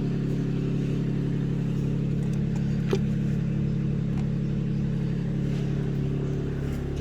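Holden Commodore VE V6 engine idling steadily, with a light click about three seconds in. The engine has a misfire, which is blamed on oil fouling a cylinder's spark plug, possibly from worn piston rings.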